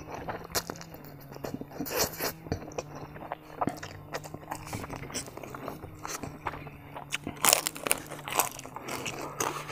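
Close-up mouth sounds of eating: spicy ramen noodles being slurped and chewed, with many small wet smacks and clicks. Near the end comes a louder bite into a piece of crispy fried pork intestine.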